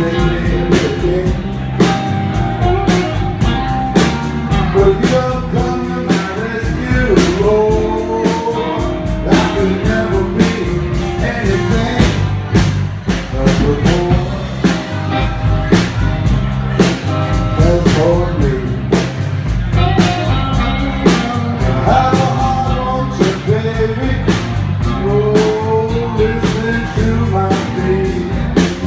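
Blues band playing live: electric guitar lead lines over bass and a drum kit keeping a steady beat.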